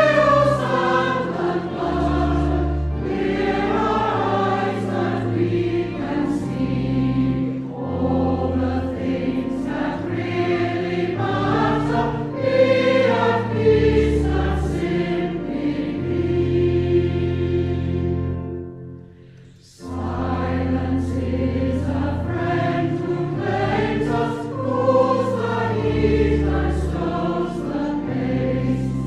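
A congregation singing a slow, contemplative hymn together over accompaniment that holds low notes, with a brief pause about two-thirds of the way through before the singing picks up again.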